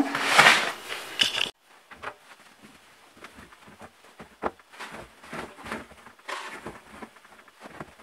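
Clothes rustling as they are handled and pushed by hand into the steel drum of a front-loading washing machine. The rustling is loud for about the first second and a half and stops abruptly, then continues faintly with a few light knocks.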